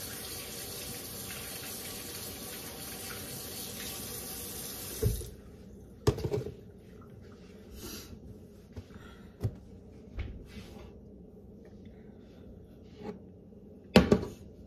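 Kitchen tap running into the sink while hands are washed, shut off about five seconds in. A few scattered knocks follow, the loudest near the end.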